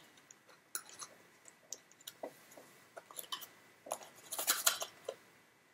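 Small packaging box being handled and opened by hand: scattered light clicks and scrapes, with a longer rustling scrape about four and a half seconds in.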